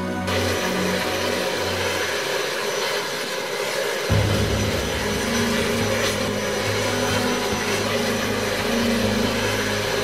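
Ayres Thrush crop-spraying aircraft's engine running on the ground with the propeller turning: a steady rushing roar with a thin high whine over it.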